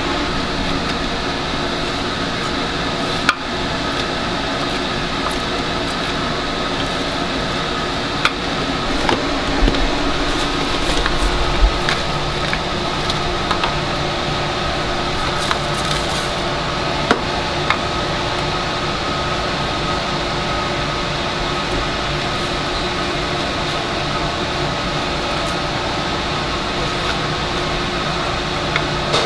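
Steady hum of a fan motor, holding a few fixed tones, with scattered sharp clicks and knocks of utensils or cookware at the stall.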